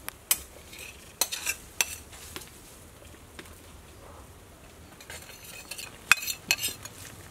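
Metal ladle scraping and tapping against a plate and the rim of a steel soup pot. It gives sharp clinks and scrapes in short clusters, around one to two seconds in and again in the second half, with quiet between.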